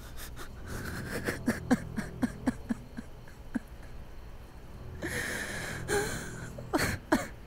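A man breathing hard during a hug: a quick run of short breaths with a faint voice in them, then a long breath out about five seconds in, and a few sharp breaths near the end.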